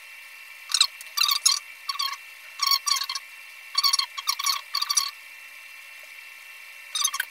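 A tool scraping across an iPhone 11 Pro Max logic board as flux and solder residue are cleaned off the SIM-slot pads. Short, irregular scratchy strokes come in quick clusters, pausing for about two seconds near the end, over a faint steady whine.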